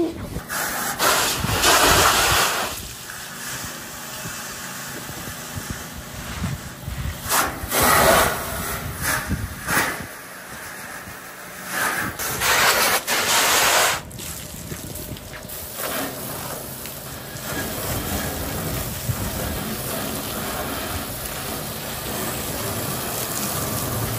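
Pressure-washer hose spray rinsing the underside of a gas-station canopy: a steady hiss of water spray striking the ceiling panels, swelling louder three times.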